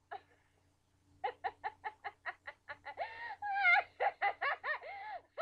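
High-pitched, cartoonish cackling laughter: a quick, even run of short 'ha' notes about five a second, turning into longer, wavering laughs about three seconds in, loudest near the four-second mark.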